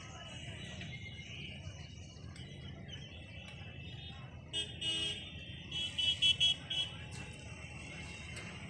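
A vehicle horn honks twice around the middle, then gives a rapid run of short beeps. Under it run a steady high-pitched chatter and a low rumble of traffic.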